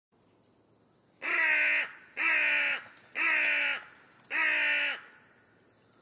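Carrion crow cawing four times, each harsh caw lasting over half a second and dropping in pitch at its end, with short pauses between.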